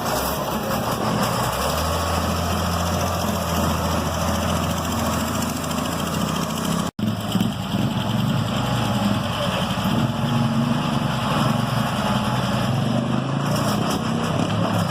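Engines of road-works machinery running steadily while the old road surface is being removed, cutting out for an instant about seven seconds in.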